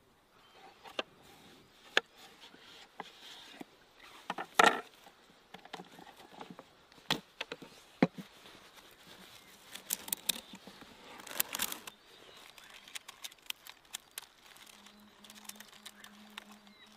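A knife and bamboo skewers working in a wooden skewer-making box: irregular sharp clicks, taps and scrapes of blade and sticks on wood. The loudest is a short scrape about four and a half seconds in, with quick clusters of taps later on.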